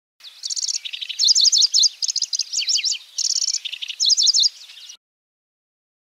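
Pallas's grasshopper warbler (kecici belalang) singing a varied song: quick high trills and rattling chatter mixed with sharp downward-slurred notes. The song cuts off suddenly about five seconds in.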